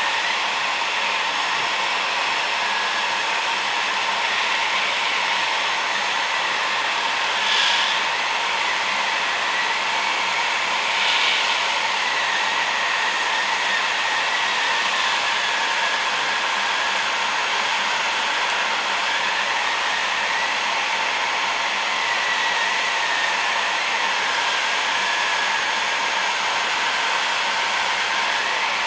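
Construction heat gun blowing hot air steadily, with a faint whine from its fan motor, heating an LED lamp's aluminium board so the LEDs can be desoldered. The rush swells briefly twice, about 8 and 11 seconds in.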